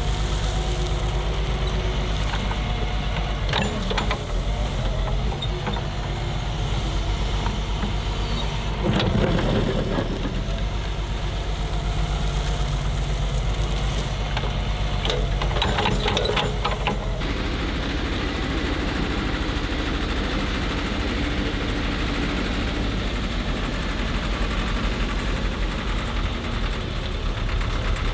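Diesel engine of heavy construction machinery running steadily, with a few short louder noises about 4, 9 and 16 seconds in.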